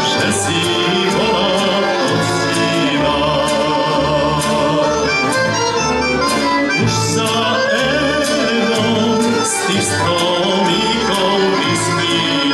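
Slovak folk-band music: accordions and a fiddle playing a lively tune over a steady beat in the bass.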